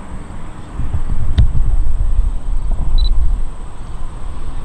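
Uneven low rumbling noise that swells for a couple of seconds, with a single sharp click about one and a half seconds in and a brief high blip near the end.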